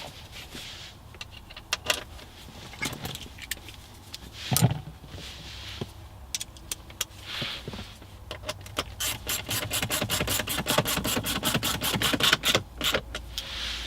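Scattered clicks and knocks of tools and plastic trim being handled. Then, from about nine seconds in, a ratchet clicks quickly and evenly, about six or seven clicks a second, as a T20 Torx bolt is driven in.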